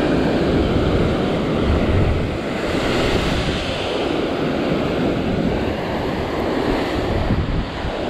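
Heavy ocean surf surging and breaking against rock ledges, the whitewater churning continuously, with a bigger wash about three seconds in. Wind buffets the microphone.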